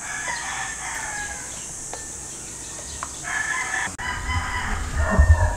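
Rooster crowing several times, with chickens clucking. A low rumble joins about four seconds in and is loudest near the end.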